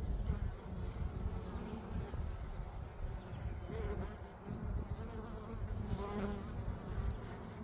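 Honeybees buzzing around an open hive as its frames are pulled and inspected, over a steady low rumble.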